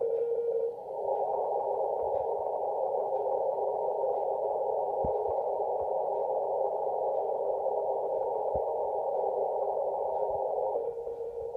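Kenwood TS-850SAT on the 160-metre band sounding Morse code: a keyed CW tone for under a second, then about ten seconds of steady hiss and static through the narrow CW filter, broken by a couple of short static crashes, before the keyed tone returns near the end.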